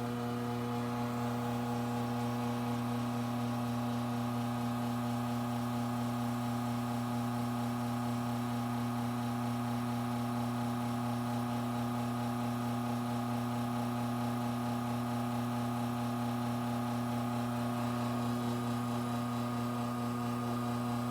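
Rocket R58 espresso machine's rotary pump humming steadily while it pulls an espresso shot.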